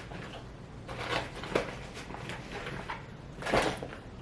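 Light clicks and rustles of makeup items being handled, with a louder rustle about three and a half seconds in.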